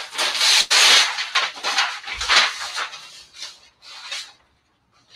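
Sheet of sublimation transfer paper rustling and scraping in several irregular bursts as it is handled and laid out, with a soft low bump about two seconds in.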